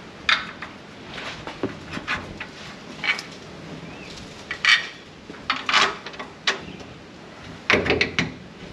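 Irregular metallic clanks, knocks and clicks of hand tools and suspension parts being handled while a rear shock absorber is fitted, with a heavier cluster of clunks near the end.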